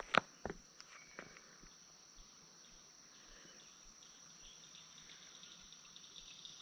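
Insects chirring steadily at a high pitch, with a few sharp clicks in the first second or so.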